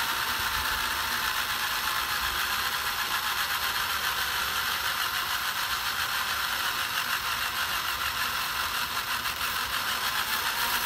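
Small plastic spur gears of a homemade RC truck's drivetrain whirring with a fast, even clicking as the driveshaft turns the front and rear axles.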